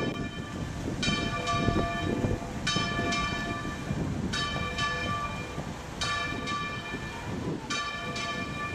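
Church bells ringing from a stone bell tower. The strokes come in quick pairs about every second and a half, each left to ring on, over a low rumble of background noise.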